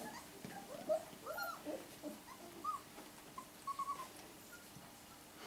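Golden retriever puppies whimpering faintly: several short, high squeaky whines with an up-and-down pitch, scattered through the first four seconds.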